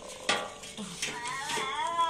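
A sharp metal clink about a third of a second in, then singing of a puja song begins, the voice sliding up into a held note near the end.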